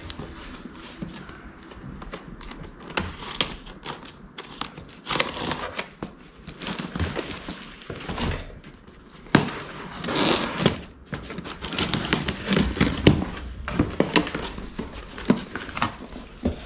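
A cardboard shipping box being unpacked: packing material crumpled and rustled in irregular crinkling bursts, with occasional sharp clicks and knocks as the contents are handled.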